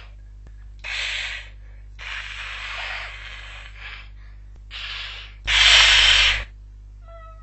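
Cats hissing at each other in a series of about six sharp hisses, the longest about two seconds in and the loudest near the end, over a steady low hum.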